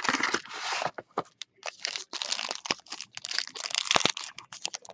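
Plastic wrapping crinkling and tearing as a sealed box of football trading cards is opened by hand, a dense run of crackles and rips.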